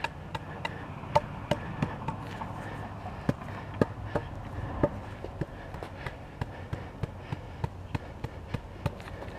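Homemade wooden tamper, a 4x4 nailed onto a 2x4, striking cold-patch blacktop again and again in light knocks about three a second, some harder than others. It is compacting the patch material into the pothole and its edges.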